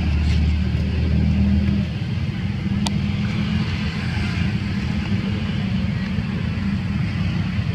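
Low, steady rumble of a motor vehicle engine running nearby, loudest in the first two seconds, with one sharp click about three seconds in.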